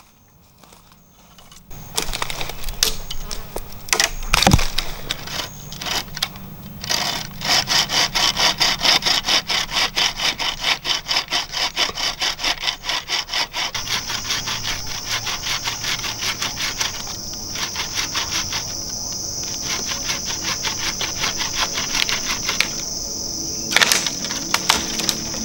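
Hand saw cutting wood in quick, regular back-and-forth strokes, about three a second, starting about two seconds in, with a couple of sharper knocks. From about halfway a steady high insect drone comes in under the sawing.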